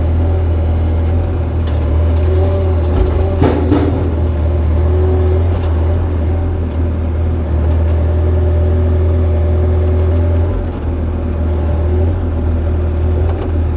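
Excavator's diesel engine running steadily while it works, with a short knock about three and a half seconds in.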